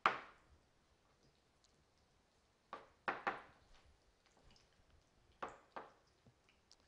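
Kitchen knife cutting raw boneless chicken on a plastic cutting board: a few soft knife strokes, about three around three seconds in and two more around five and a half seconds.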